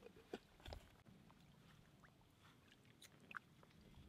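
Near silence with a few faint clicks and taps from hands handling an aluminium spirit stove and its windscreen base.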